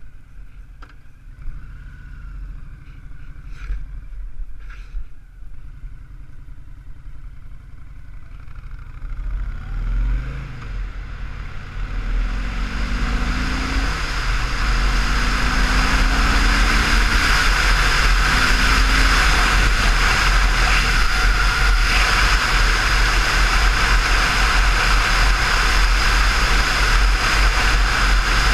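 Honda VTX1300 V-twin engine rumbling at low speed, then accelerating about ten seconds in, its pitch rising and dropping back at each gear change. From about a third of the way in, heavy wind rush on the handlebar-mounted camera's microphone grows loud and largely drowns the engine.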